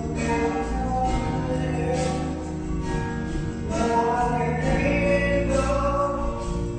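A song with sung vocals over instrumental backing, the voices holding long notes.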